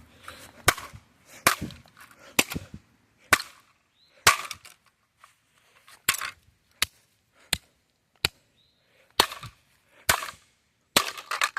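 A hammer striking a plastic Sangean digital clock radio: about a dozen sharp blows roughly a second apart, with a short pause partway through.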